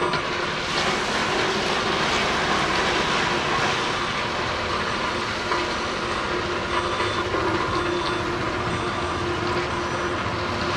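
Scania hooklift truck's diesel engine running steadily as the hook arm lifts the tipping container higher, with a continuous rushing rattle of stone sliding out of the back onto the pile.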